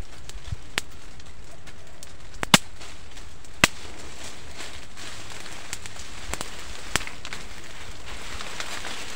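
Sharp snaps of twigs and small branches being broken by hand in dense scrub, single cracks a second or more apart, the loudest two in the first half, over a steady hiss.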